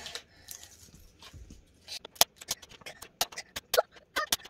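Irregular sharp clicks and taps of hard plastic being handled, starting about two seconds in, as a toy surprise egg and its packaging are worked open.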